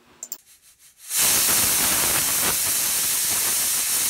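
Pressure cooker whistle going off: steam venting past the weight in a steady hiss that starts about a second in. It is the sign that the cooker has reached full pressure, one of the whistles counted to time the cooking.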